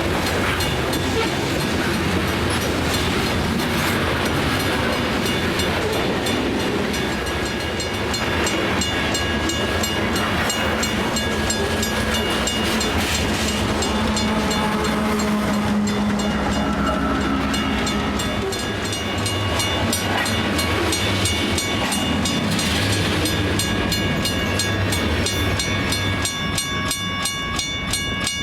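Freight cars of a grain train rolling past, a steady loud wheel-on-rail rumble with regular clicking and thin high squealing tones from the wheels that come and go.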